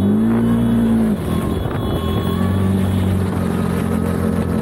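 CF Moto UForce 1000's 1000 cc V-twin engine, heard from the seat with the engine right behind, pulling under way. It revs up, holds and eases off over the first second or so, then runs at a steadier, slightly lower note.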